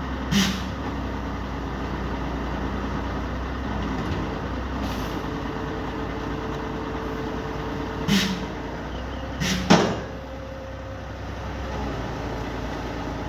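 Crane truck's engine running steadily during a machine lift, with three sharp knocks: one at the start and two later on, about a second and a half apart.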